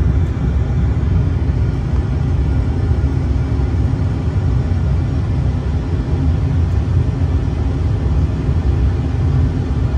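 Steady low rumble of a Boeing 747-400 full-flight simulator's takeoff roll, with takeoff thrust set on all four engines as the aircraft accelerates down the runway.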